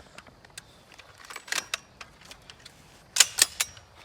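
Sharp metallic clicks and rattles of a gun and its magazine being handled. They come in two clusters, about a second and a half in and just after three seconds, and the second cluster is the loudest.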